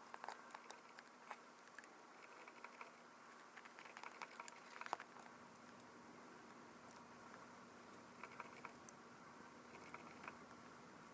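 Faint, irregular small clicks and light taps of tools and tiny parts being handled on a Canon PowerShot S110 compact camera during disassembly for a lens-error repair, in little clusters with pauses between.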